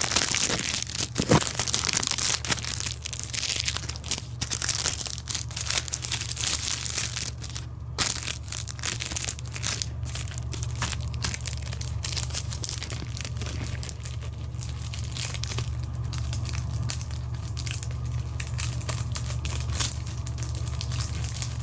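Clear plastic sleeve crinkling and rustling as a film frame is carefully worked out of it, dense in the first half and thinning to scattered crackles later. A steady low hum runs underneath.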